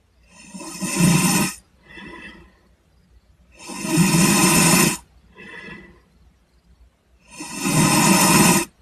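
A man snoring in deep sleep, in a regular rhythm: three loud snores about three and a half seconds apart, each followed by a shorter, softer breath.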